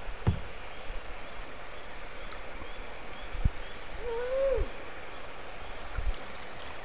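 Water lapping and trickling around a kayak on calm water, with several low knocks and a short rising-then-falling tone about four seconds in.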